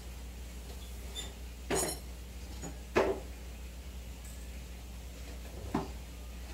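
Steady low hum of running aquarium equipment, the air-driven sponge filters bubbling, with three sharp clicks or knocks: one about two seconds in, a louder one at three seconds, and one near the end.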